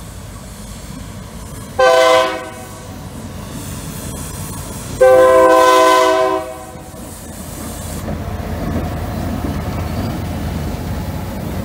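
MP15DC switcher locomotive's multi-tone air horn sounding a short blast and then a longer one at a grade crossing. The diesel engine and rolling wheels then grow louder as the locomotive passes close by.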